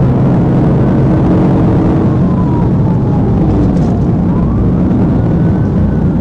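Police cruiser running at high highway speed in a pursuit: loud, steady engine, tyre and wind noise, with a siren wailing faintly in slow falls and rises.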